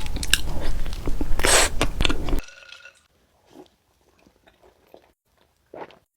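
Close-miked eating: a person bites and chews a dessert with crisp, crunchy clicks and one louder crunch. About two and a half seconds in, the sound cuts off abruptly to near quiet, with only a few faint soft chewing clicks after that.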